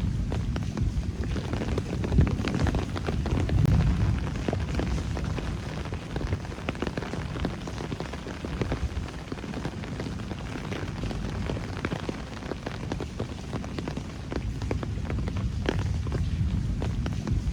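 Rain falling on city streets and surfaces, many close drops ticking and splattering over a continuous low rumble.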